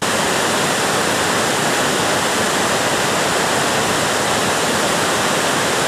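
River Tees rushing over rocky rapids: a steady, even rush of whitewater.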